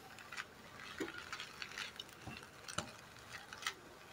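Faint scrapes and clicks of a spatula stirring fresh Indian borage and holy basil leaves as they begin to sauté in a pan on medium heat.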